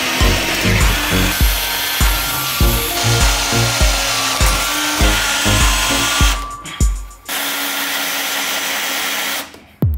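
A power tool running steadily with a dense high hiss, over background music with a deep beat of about two hits a second. The music drops out about two-thirds of the way through, and the tool carries on alone, stopping just before the end.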